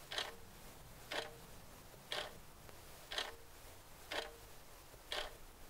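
Clock ticking faintly and evenly, one tick a second, each tick sharp with a brief ring after it.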